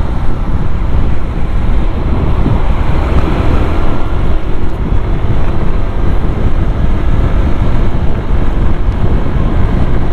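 Heavy wind buffeting on the microphone while riding a Yamaha Aerox 155 scooter at speed, with its 155 cc single-cylinder engine faintly heard beneath as it is pushed hard on an open road.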